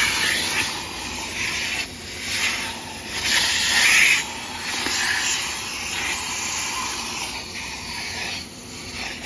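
Vacuum cleaner running, its hose nozzle sucking dirt and grass bits off a pickup truck's door sill: a steady rushing hiss that surges and changes as the nozzle moves over the sill, loudest about four seconds in.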